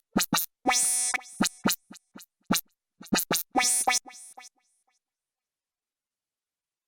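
Short pitched sampled sounds played one at a time on an Akai MPC Live sampler, recorded straight from its line output: a run of sharp hits in an uneven rhythm, a few ringing on longer, then dead silence for roughly the last two seconds.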